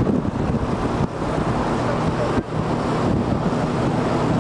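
A moving bus, heard from its side window: a steady low engine hum and road noise with wind buffeting the microphone. The level dips briefly about a second in and again near two and a half seconds.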